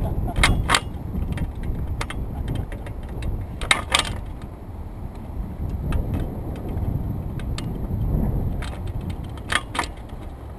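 Wind buffeting the microphone as a steady low rumble, with scattered light clicks and rattles in clusters about half a second in, around four seconds in, and near the end.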